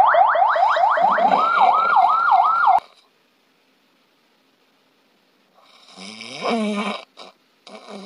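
An electronic siren sound effect, fast rising whoops that turn into a wavering up-and-down wail, cuts off suddenly about three seconds in. After a pause, a person snores loudly with a rasping, pitched tone about six seconds in, and another snore starts near the end. This is snoring at the 'danger' stage, a loud snore from a narrowed airway.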